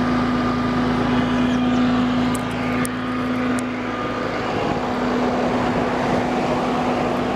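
Flatbed tow truck's engine running at a steady hum with the PTO engaged to drive the bed's hydraulic pump. A few faint clicks sound near the middle.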